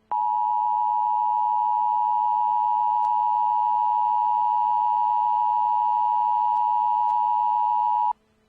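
Emergency Alert System attention tone: one steady, high-pitched electronic tone held for about eight seconds, then cut off sharply.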